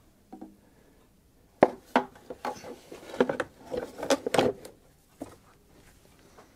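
Hard plastic knocking and rubbing as a car's airbox is worked loose and handled in the engine bay: a sharp knock about a second and a half in, then a couple of seconds of irregular clunks and scrapes, and a few faint taps near the end.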